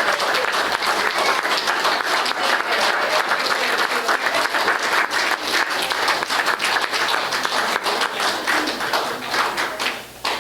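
Audience applauding, a steady round of many hands clapping that dies away near the end.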